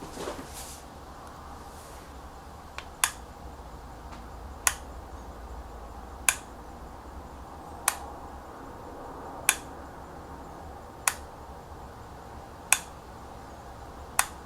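Peco PL-23 lever switch in a PL-27 switch console being flicked back and forth, operating a two-aspect colour light signal. Eight sharp clicks come about a second and a half apart, starting about three seconds in.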